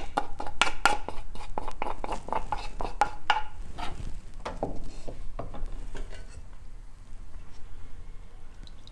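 A metal spoon clinking and scraping against a wooden bowl and an aluminium pot, transferring king chili chutney: a quick run of taps and scrapes for the first four seconds, then fewer and softer ones.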